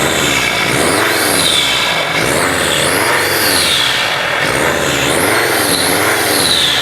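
New turbocharger on a Mercedes Sprinter whistling as the engine is repeatedly revved and let fall back. The engine note and a high turbo whistle rise and fall together, roughly once a second.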